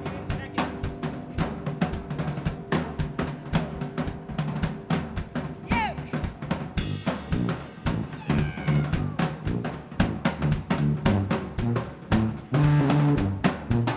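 A live band playing an instrumental passage of a song. A drum kit keeps a steady beat with bass drum and snare under a moving bass line, and a lead instrument plays a few sliding notes.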